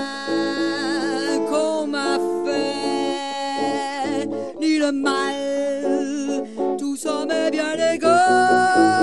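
A woman singing a French ballad in long held notes with vibrato, over electric guitar accompaniment. A louder long note begins near the end.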